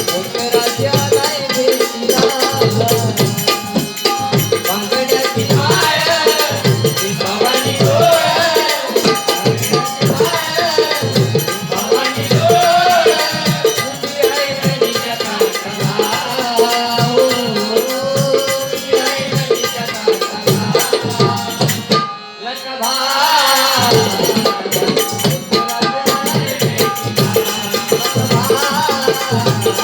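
Bhajan ensemble playing: a hand drum beats a quick, steady rhythm under a wavering melody with jingling percussion. The sound drops out suddenly for about a second and a half roughly three quarters of the way through, then resumes.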